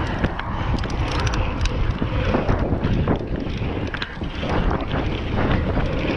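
Wind buffeting the action camera's microphone as a Nukeproof mountain bike rides fast over dirt jumps, with a low rumble from the knobby tyres on packed dirt and frequent short knocks and rattles from the bike.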